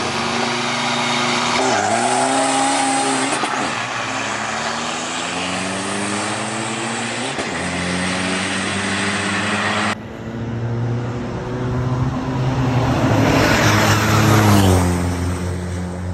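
Diesel drag-racing trucks launching hard and accelerating down the strip, their engines climbing in pitch through repeated gear changes. About ten seconds in the sound cuts abruptly to another stretch of engine note that rises and then drops away.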